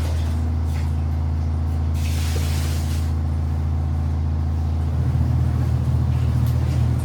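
Washing machine motor running with a steady low hum that pulses; the pulsing changes about five seconds in. A brief hiss comes about two seconds in.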